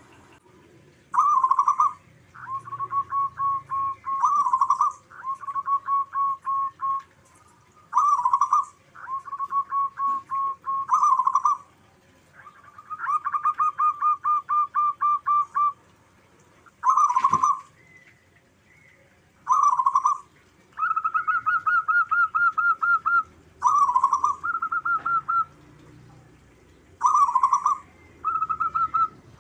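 Zebra doves (local perkutut) cooing in repeated rippling phrases, each a quick run of short pulsed notes lasting a second or two. The phrases follow one another with brief pauses, and higher-pitched ones alternate with lower ones as the birds answer each other.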